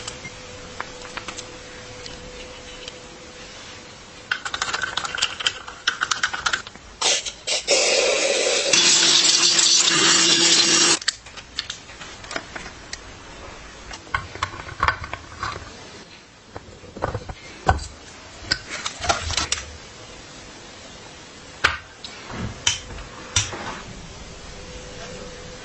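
Workshop work on metal parts: scattered sharp clicks, clinks and taps, with a denser run of clatter and then a loud hissing noise lasting about three seconds near the middle.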